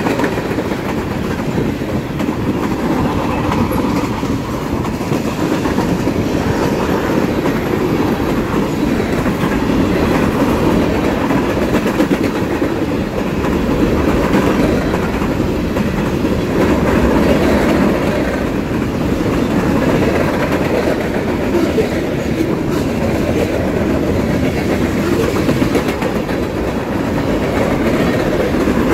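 Freight train cars rolling past at close range: a steady, loud rumble with the clickety-clack of steel wheels over the rail joints.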